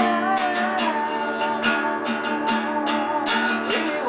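Acoustic guitar strumming chords in a live jam, with a wavering held note that fades out about a second in.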